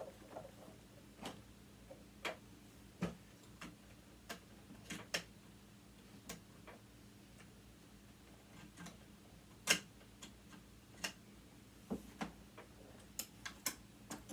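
Irregular light clicks and taps of small metal hand tools working on sewing machine parts, with one sharper click about ten seconds in, over a faint steady hum.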